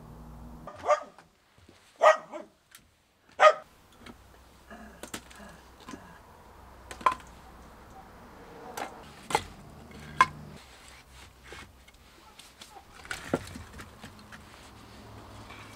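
A dog barks three times in the first few seconds. Then come scattered sharp wooden knocks and clatters as split firewood logs are picked from a woodpile and dropped into a wicker basket.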